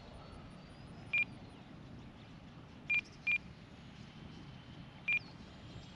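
Four short, high, single-pitched beeps from a Spektrum RC transmitter: one about a second in, a quick pair around three seconds, and one more past five seconds, over faint steady background noise.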